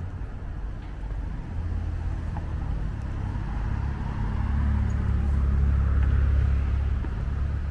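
A car going past: a low rumble that swells over several seconds, is loudest just past the middle, then fades.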